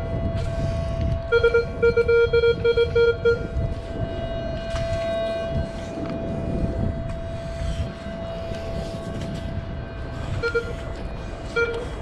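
Metal detector giving low-pitched target beeps as its search coil sweeps over beach sand: a quick run of about five beeps a second from about one to three and a half seconds in, and a couple more near the end, over a steady faint tone.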